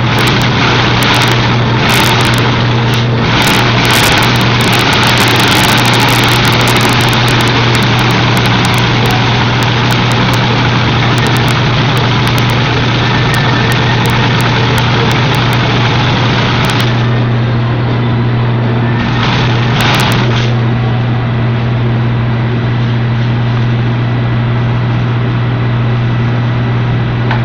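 A machine's motor running steadily with a constant low hum, under a hiss that lessens about seventeen seconds in.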